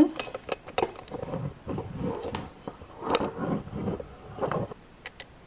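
Camera handling noise: hoodie fabric rubbing against the microphone, with scattered clicks and knocks as the camera on its tripod is carried and set down.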